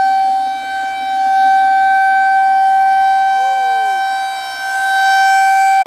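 Outdoor warning siren sounding a steady tone at a single pitch during its monthly test. Its loudness slowly dips and swells, about every four seconds.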